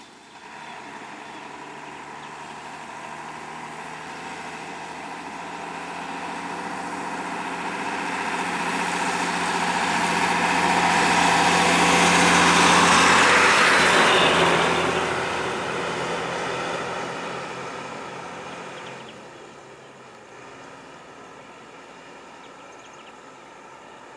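Tata bus diesel engine running as the bus drives past close by. It grows louder to a peak about halfway through, then fades over the next few seconds, leaving a quieter engine hum.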